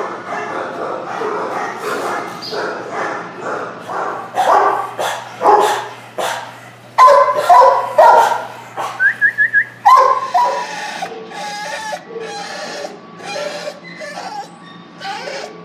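Many dogs barking in shelter kennels, a constant overlapping chorus of barks, with a quick run of high yelps about nine seconds in.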